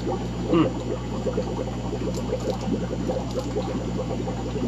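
Aquarium water trickling and bubbling steadily, a dense patter of small splashes over a low steady hum from the tank's running equipment.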